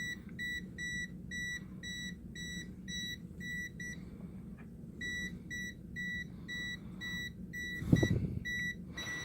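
AstroAI M6KOR multimeter's non-contact voltage detector beeping, short high beeps about two a second, signalling that it senses a live AC voltage; the beeping pauses for about a second partway through. A brief loud knock near the end.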